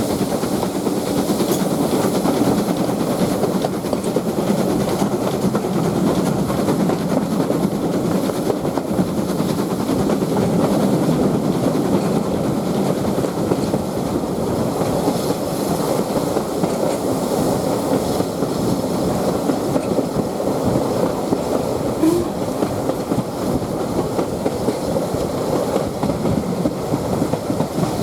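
Steam-hauled heritage passenger train running along the track: a steady rumble of wheels on rails. There is a brief squeak about three-quarters of the way through.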